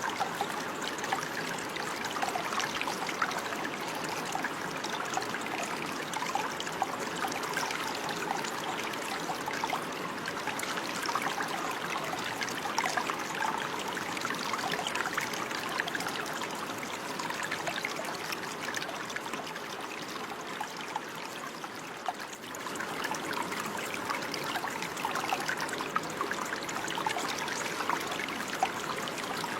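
Running water trickling and babbling steadily, with many small splashes over an even rush. It drops a little in level about two-thirds of the way through, then comes back up.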